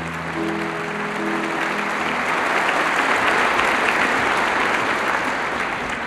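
A few piano notes ring and are held, then stop about two seconds in, while audience applause swells and takes over as the loudest sound.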